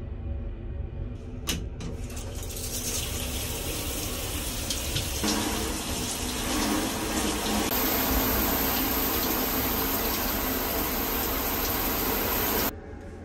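Hand-held shower spraying water against the wall of a shower stall, after a sharp click about a second and a half in. The spray comes in about two seconds in, gets louder and fuller around the middle, and cuts off suddenly near the end.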